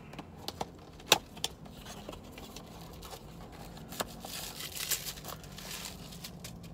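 A wrapped tobacco pipe being handled and unwrapped. A few sharp clicks and taps come in the first couple of seconds, the loudest about a second in, then the wrapping rustles for a couple of seconds near the end.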